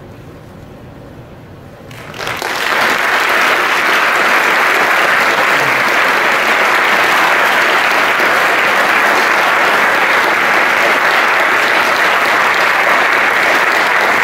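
Audience applauding after a choral performance. It breaks out suddenly about two seconds in, after a hushed pause, and then holds as steady, full clapping.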